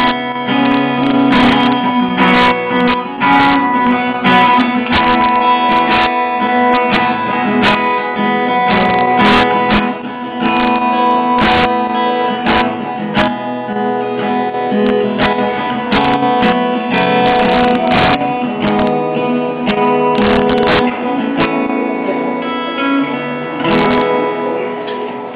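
Music led by strummed acoustic guitar, with sustained chords and regular strokes throughout.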